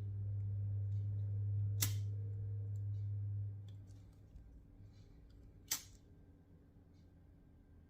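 Sharp clicks of small parts or tools being handled, twice, over a low steady hum that stops about three and a half seconds in.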